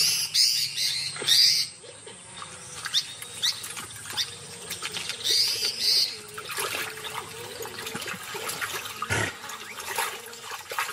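Great kiskadee calling: a quick run of four loud, high calls at the start and two more about five seconds in, with softer chirps between. A couple of sharp clicks come near the end.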